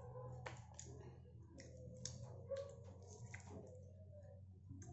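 Faint small clicks and handling noises of a plastic spoon and paper soup cup being set down among cardboard food boxes, over a steady low hum.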